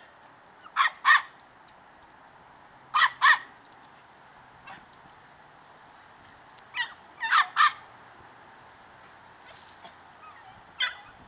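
Puppy barking in short, high-pitched yips, mostly in quick pairs, with pauses of a few seconds between them.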